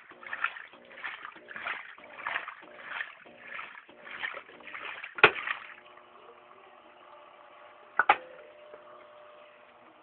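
Muller washing machine agitating a load, its water swishing back and forth about one and a half times a second with the motor's hum under each stroke. The agitation stops right after a loud click about five seconds in, leaving a steady hum, and there is a sharp double click about eight seconds in.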